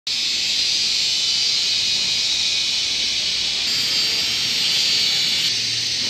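Steady, high-pitched hiss with no clear rhythm, shifting slightly in tone twice, about three and a half and five and a half seconds in.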